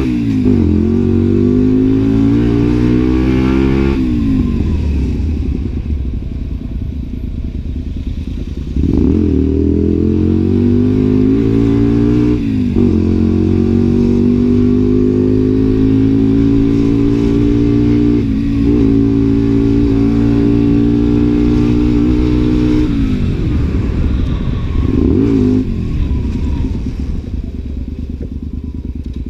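Honda Varadero's V-twin engine pulling through the gears on a ride: its pitch climbs, drops at each shift or throttle-off, holds steady while cruising, and falls away as the bike slows near the end.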